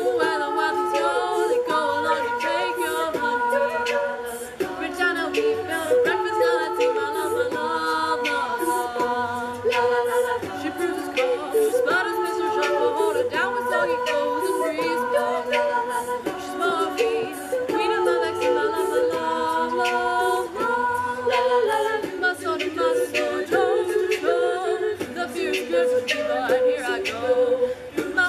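A women's a cappella group singing held, close chords, with vocal percussion keeping a steady beat.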